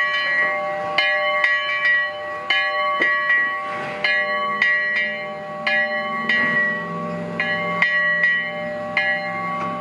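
The bell of the Glenbrook, a 2-6-0 narrow-gauge steam locomotive, ringing in uneven strokes about one to two a second, each stroke ringing on. A low steady hum comes in about two-thirds of the way through.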